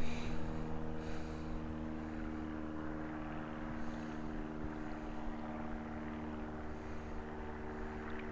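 Distant engine running at a steady drone, holding one pitch.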